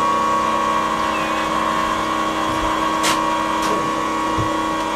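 Small 12-volt electric pump running with a steady whine, transferring preheated waste vegetable oil out of a steel drum. Two sharp clicks come about three seconds in.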